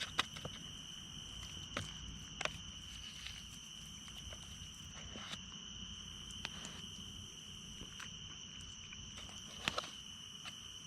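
A chorus of crickets with a steady high-pitched chirring, unbroken throughout. A few short sharp clicks and rustles sound above it, the strongest near the start and near the end.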